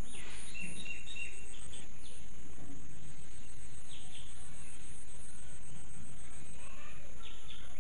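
Outdoor insect chorus: a steady high-pitched cricket-like trill with a fast pulsing chirp over it. Short bird calls break in near the start, about four seconds in and near the end.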